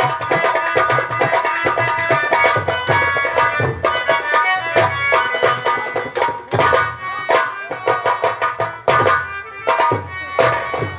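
Nautanki folk-theatre music: fast, dense hand-drum strokes over a sustained melody instrument, with the drumming turning into more spaced, distinct strokes in the second half.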